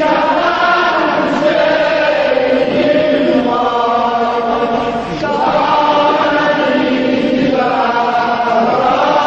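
A man singing a mournful Azerbaijani elegy for Imam Hussain, drawing out long, wavering notes with short breaks about five seconds in and near the end.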